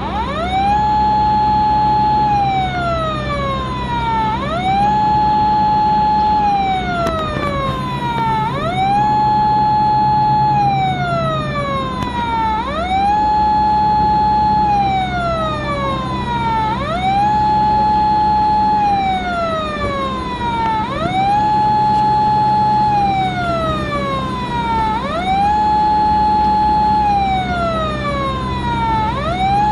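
Police car siren sounding a slow wail. Each cycle rises quickly, holds a high note for about a second and a half, then slides back down, repeating about every four seconds over a steady low hum.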